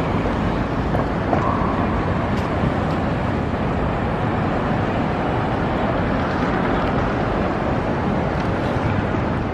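Steady city street traffic noise, with a short tone about a second and a half in.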